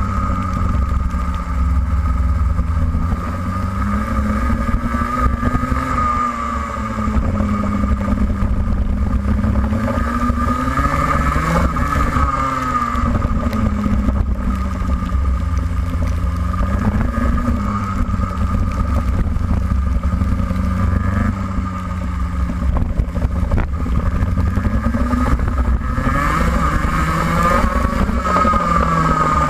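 Racing kart engine heard from the kart's onboard camera, its pitch rising under acceleration out of corners and dropping under braking, again and again over the lap.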